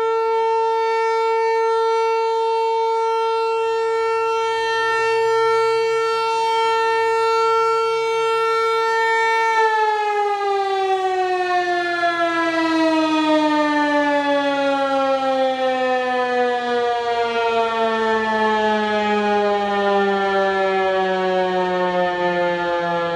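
Tornado warning siren sounding a steady tone. About ten seconds in it begins winding down, its pitch falling slowly and smoothly as the alert signal ends.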